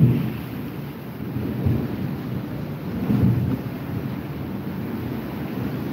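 Thunder rumbling in a thunderstorm over a steady hiss of rain. The rumble swells right at the start and again about three seconds in.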